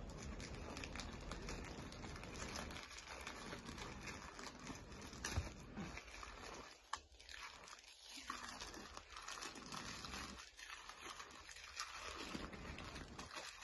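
A plastic courier mailer bag being peeled and torn open by hand, its plastic crinkling and rustling, with two sharper snaps in the middle.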